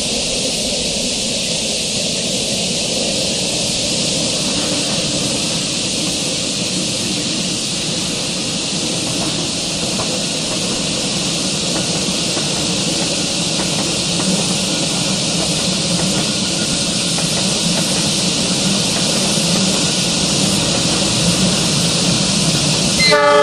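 Distant diesel locomotive working uphill with a passenger train: a low rumble that grows slightly louder, under a steady hiss. A train horn starts to sound right at the very end.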